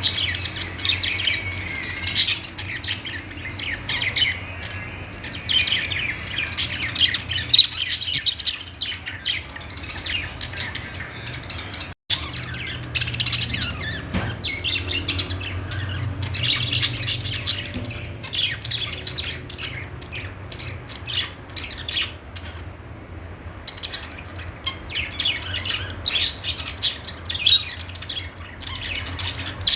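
A flock of pet budgerigars chirping and chattering continuously in rapid, high-pitched twitters with occasional squawks. The calls thin out briefly a couple of times, over a steady low hum.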